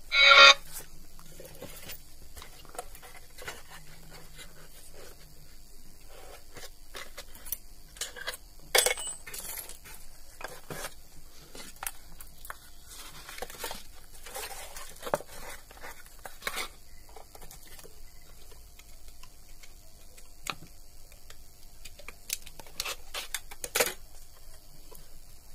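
Scattered clicks, knocks and scrapes of loudspeakers, wires and tools being handled on a workbench, with a short loud burst right at the start.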